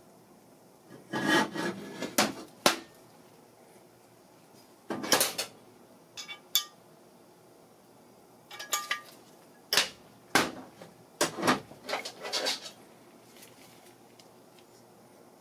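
Metal hand tools and engine parts clinking and knocking against a small engine block being handled on a workbench: irregular clusters of sharp clicks with quiet gaps between them.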